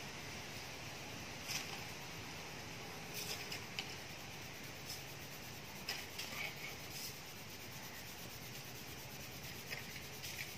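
Faint cloth rubbing on the painted plastic side panel of a Honda Wego 110 scooter, working toothpaste into the scratches as a polish: soft, irregular scrubbing rustles over a steady low hiss.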